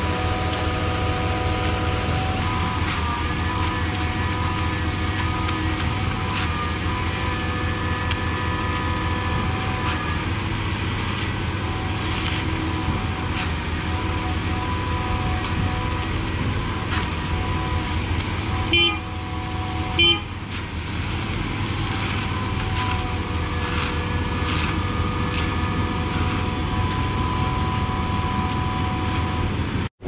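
Truck-mounted concrete boom pump running steadily: a diesel engine drone with a steady whine over it. Two short sharp knocks, a little over a second apart, come just past the middle.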